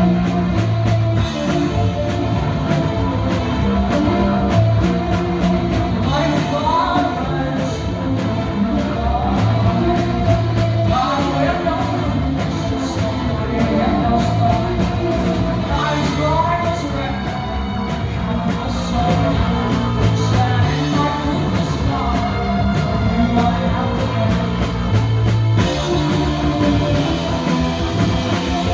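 A rock band playing live at full volume: drums, guitar and bass, with vocals coming in several times over the music.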